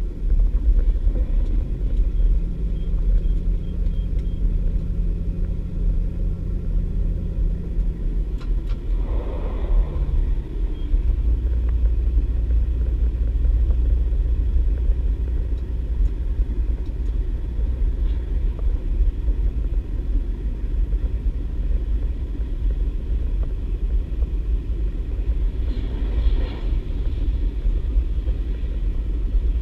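Inside a DB Class 612 diesel multiple unit under way: a steady, heavy rumble from its diesel engines and the wheels on the track. The engine's hum changes note about ten seconds in, and brief rushing swells come around then and again near the end.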